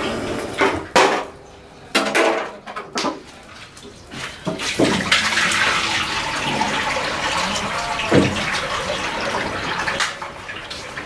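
A few knocks and clatters, then from about five seconds in cooking oil pouring in a steady stream from a square tin into a large iron kadai.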